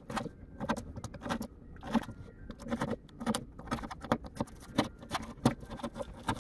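Utility knife blade cutting a small circle out of corrugated cardboard: a run of short, irregular scratchy crackles, several a second.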